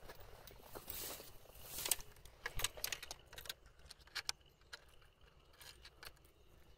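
Irregular rustling and light clicks of someone moving through tall grass and handling a fishing rod and lure, with a longer swishing rustle about a second in.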